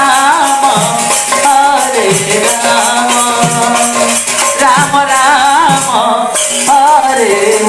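Koshali devotional kirtan music: a wavering sung melody over a steady held note, with continuous jingling, rattling percussion.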